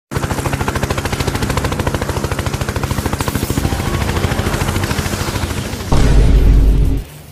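Sound effect of rapid, continuous machine-gun fire, as from an attack helicopter's gun. About six seconds in, a louder, deeper explosion-like blast lasts about a second and then cuts off suddenly.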